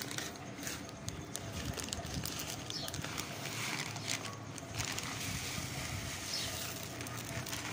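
Dry whole wheat grains poured from a plastic packet into a bowl: a steady patter of small grain clicks with the crinkle of the plastic bag.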